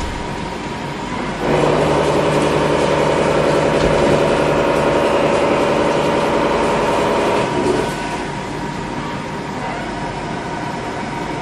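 CNC milling machine running with a Seco Double Octomill high-feed face mill. About a second and a half in, the cutter goes into the cut and a steady pitched hum rises over the machine noise for about six seconds, then drops back to the running noise.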